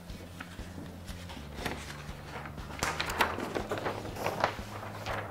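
Large flip-chart paper sheets rustling and crackling as a page is lifted and turned over the top of the pad, a scatter of short crackles mostly in the middle, over a steady low hum.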